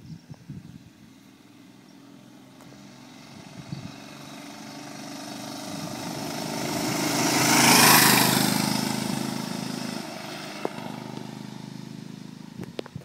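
1948 Cushman Pacemaker 4 hp scooter's single-cylinder engine running as it rides past, growing louder as it approaches, loudest about eight seconds in, then fading as it moves away.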